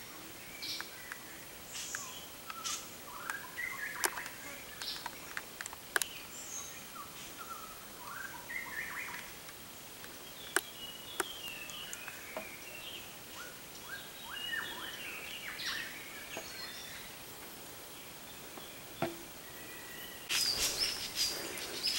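Several wild birds chirping and calling in jungle trees: short, scattered calls. A few sharp clicks stand out above them, and a burst of crackling noise comes near the end.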